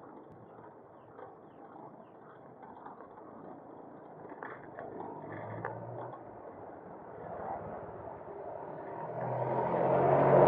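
Steady road and wind noise on a bicycle ride, with a few clicks about halfway through. Near the end a motor vehicle approaches and quickly grows loud as it passes close by.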